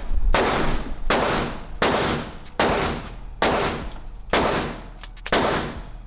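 Gunshots from a handgun fired in steady succession, seven shots about one every 0.8 seconds, each followed by a long echoing decay.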